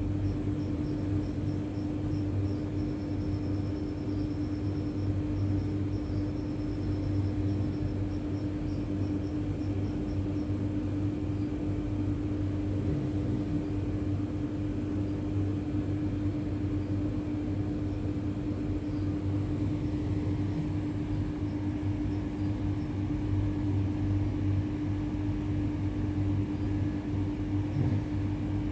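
A steady machine hum with a constant low tone and a deeper drone beneath it.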